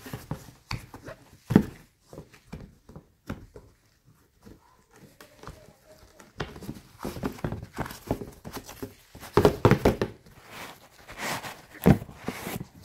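Handling noise from an Adidas Yeezy Boost 350 V2 sneaker being pressed, turned and knocked against its cardboard box: irregular thumps, rubs and rustles. The louder knocks come about a second and a half in, in a cluster around ten seconds, and again near the end.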